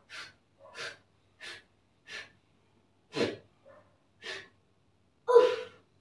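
A child blowing short, repeated puffs of breath at a candle flame, about eight in all, roughly one every two-thirds of a second. The puffs are too weak to put the flame out. The last one, near the end, is the loudest and has a little voice in it.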